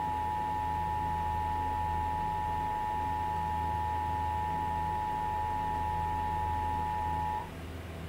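Emergency Alert System two-tone attention signal: two steady tones sounding together, cutting off near the end. It is the alert tone that announces an emergency alert, here ahead of a monthly test message.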